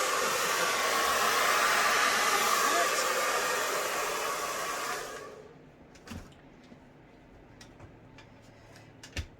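Hair dryer blowing steadily, then switched off about five seconds in. A couple of faint knocks follow.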